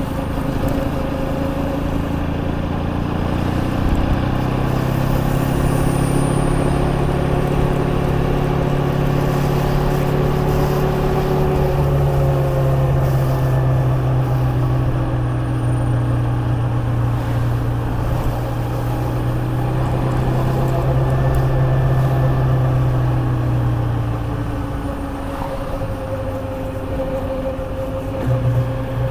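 KTM Duke 250 single-cylinder engine running under a rider on the move: the engine note climbs over the first dozen seconds, holds steady at cruise, then eases off a little past twenty seconds and picks up again near the end.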